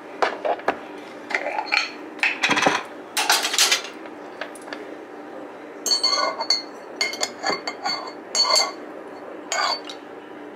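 Glassware and kitchen utensils clinking and knocking while a cocktail is put together: irregular sharp clinks, a busier stretch of clatter a few seconds in, and from about the middle onward clusters of ringing glass clinks.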